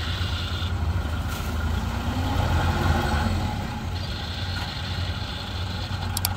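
Engine of a tracked rice-hauling cart loaded with sacks, running steadily with a low hum. Just before the end comes a quick cluster of sharp clicks, the click of the subscribe-button animation.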